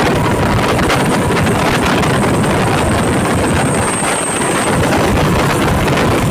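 An empty test train running at about 90 km/h across a bridge: a loud, steady rushing rumble with a faint high whine from about three to five seconds in.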